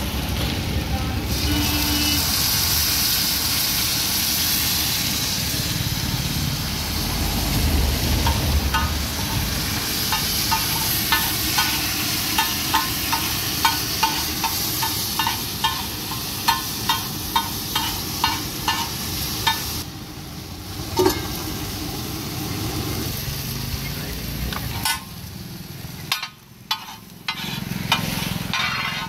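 Aloo tikki and chole sizzling in oil on a large flat iron griddle (tawa). Through the middle, a metal spatula strikes the griddle about twice a second as it chops and mashes them. Later the sizzle thins out, leaving scattered spatula clicks and scrapes on the iron.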